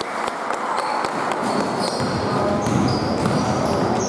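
Basketball game on an indoor court: the ball bouncing with sharp thuds, and from about a second and a half in, short high squeaks typical of sneakers on the floor, over a general noise of players and the hall.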